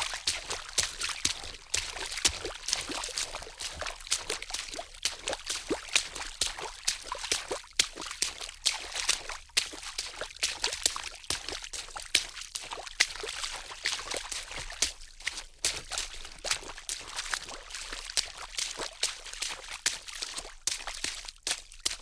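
Water splashing, a dense, irregular run of small splashes without a break.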